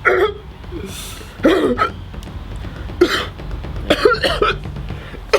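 A young man coughing and hiccuping in short separate bursts, roughly one a second; the coughing is put on, faked for a prank.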